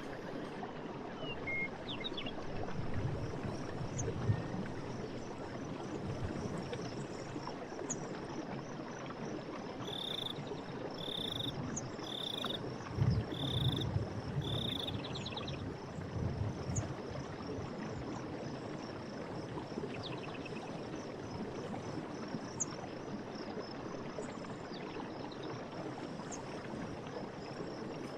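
Forest stream running steadily, with a short high animal call repeated five times about a second apart near the middle and a few scattered bird chirps.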